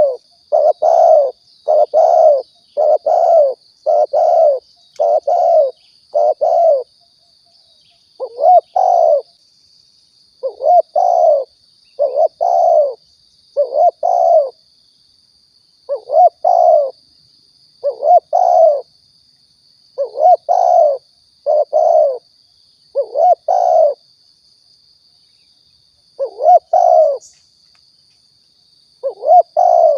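Spotted dove (tekukur) cooing, used as a lure call: short, loud coo notes repeated in runs, with pauses of a second or two between runs. A faint steady high whine runs underneath.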